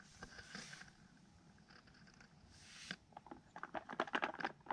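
A dog sniffing at a plastic puzzle toy in soft hissing breaths, then a quick run of light clicks and taps from the plastic pieces of a Trixie Activity Flip Board being moved about, starting about three seconds in.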